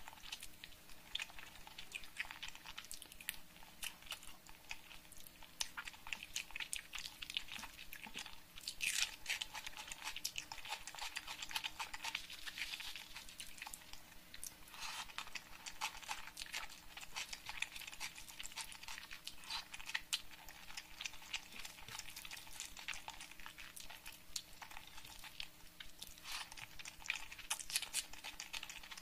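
Close-miked ASMR eating sounds: chewing and wet mouth clicks from a mouthful of rice and egg curry, mixed with fingers squishing and gathering sticky curry-soaked rice on the plate. The sound is a dense, continuous run of small wet clicks and crackles.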